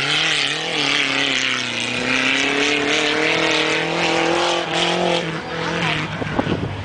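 Off-road race truck's engine running hard under throttle, its pitch wavering in the first second and then climbing slowly as it pulls up the course, before fading about five seconds in. A steady hiss runs underneath.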